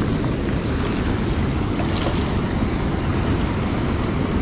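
Steady rushing of a shallow, fast brook flowing over rocks around the wader's boots, an even noise with a heavy low rumble from wind on the microphone.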